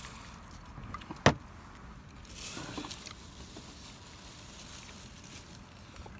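A single sharp click about a second in, then soft rustling, over low steady background noise.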